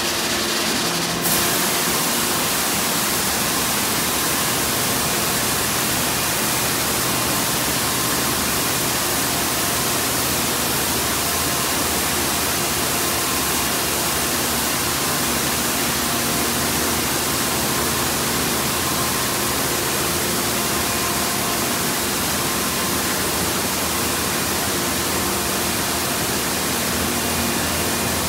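D&S Quicksilver touch-free car wash running: a loud, steady rush of noise begins about a second in and holds without a break, with a faint machine hum underneath.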